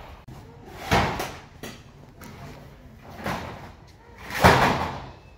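A series of sharp bangs and knocks, like wooden doors or panels being shut. The strongest come about a second in, just past three seconds and at about four and a half seconds, the last being the loudest.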